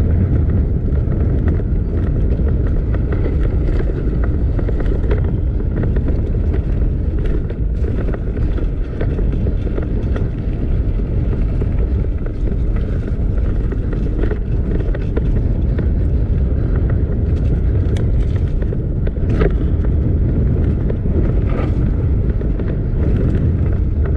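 Wind buffeting the microphone over the rumble of mountain bike tyres rolling fast on pavement, with a few scattered clicks and knocks from the bike.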